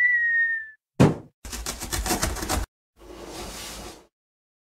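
Cartoon sound effects of an animated channel intro: a short whistle-like tone sliding slightly down, a thump about a second in, a fast rattle lasting about a second, then a softer rushing hiss.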